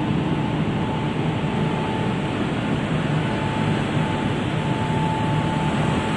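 Steady rush and hum of a building's ventilation system, with a faint steady whine running through it.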